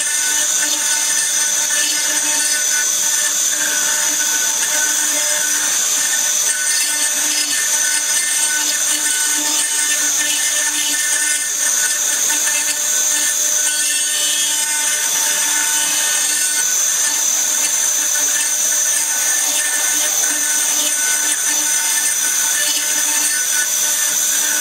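Stone CNC router's spindle carving stone under water coolant: a steady high-pitched whine with the grinding hiss of the cut.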